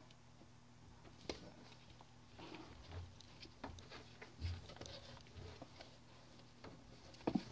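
Faint scattered taps, scratches and soft bumps of a young kitten moving about and pawing inside a cardboard box, with a louder knock near the end.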